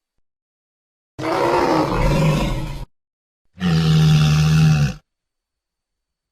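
Two designed Plateosaurus dinosaur calls from a creature sound-effect set, separated by silence. The first is a rough, raspy roar about a second and a half long; the second is shorter and holds a steady low pitch.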